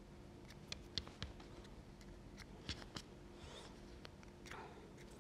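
Fabric shears snipping loose thread ends off a sewn cotton bow: faint, irregular snips and clicks, with a couple of soft rustles as the fabric is handled.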